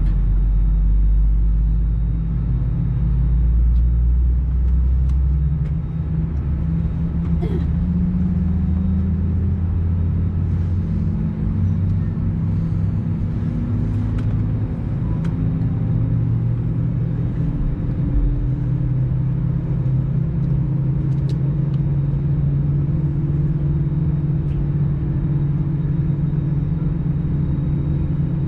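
Airbus A320's CFM56 turbofan engine starting up, heard from the cabin: a low rumble with a hum that rises slowly in pitch as the engine spools up.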